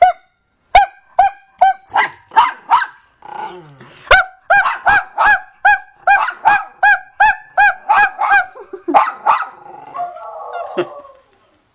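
Small Yorkshire terrier-type dog barking in short, high-pitched yaps, about three a second, with a rougher, noisier yap-whine near the end.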